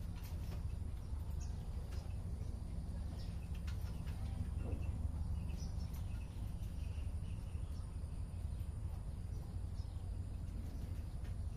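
Steady low background rumble with faint, scattered short chirps of small birds and insects.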